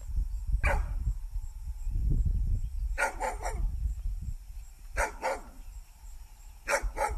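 A dog barking in short bursts: one bark, then groups of two or three barks about every two seconds, eight or so in all.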